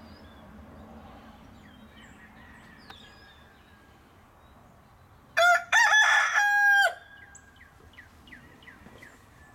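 A rooster crows once, about five and a half seconds in, lasting about a second and a half and ending on a held note. Faint short chirps follow.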